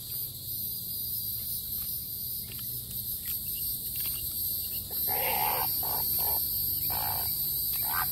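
Insects droning steadily in the summer vegetation, and from about five seconds in a few short, harsh animal calls, each well under a second.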